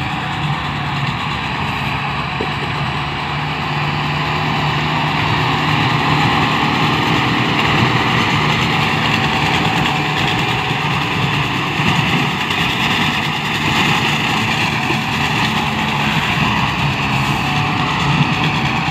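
Kubota MU5501 tractor's four-cylinder diesel engine running steadily under load while it drives a straw cutter through paddy stubble. The sound is a continuous engine drone mixed with the cutter's whirring, a little louder in the middle as the tractor passes close.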